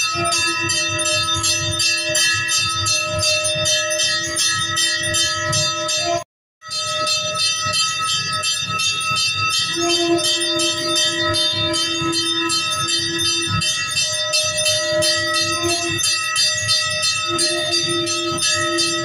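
Temple bell rung rapidly and continuously during aarti, its ringing tones sustained under fast, even strikes. The sound cuts out completely for a moment about six seconds in, then resumes.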